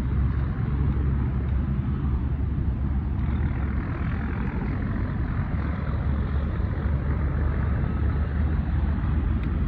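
Steady road traffic noise: a continuous rumble of passing vehicles, with no single distinct event.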